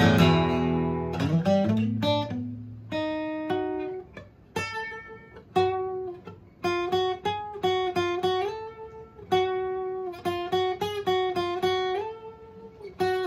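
Japanese-made Aria 9460 Hummingbird-copy acoustic guitar: a strummed chord rings out and fades, then single notes are picked one after another as a melody, with a few notes slid up in pitch.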